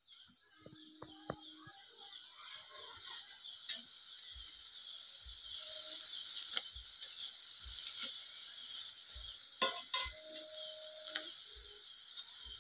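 Breadcrumb-coated vegetable chops deep-frying in hot oil in a metal kadai, a steady sizzle that builds up over the first couple of seconds. A perforated metal slotted spoon clinks sharply against the pan a few times as the chops are turned.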